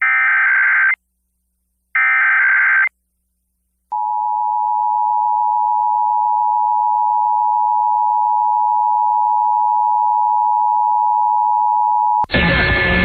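Emergency Alert System broadcast test over FM radio: the last two bursts of the SAME digital header, a harsh warbling data screech, then about four seconds in the steady two-tone attention signal (853 and 960 Hz) for about eight seconds. Near the end a sudden loud burst of noise breaks in.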